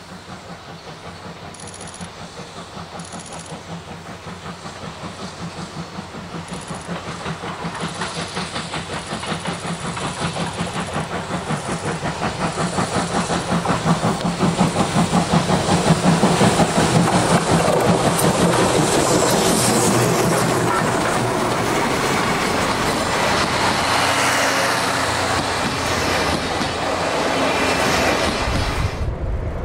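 C57 steam locomotive and its train approaching: a rhythmic beat of chuffing and rail clatter grows steadily louder for about fifteen seconds, then the train runs past loud and steady.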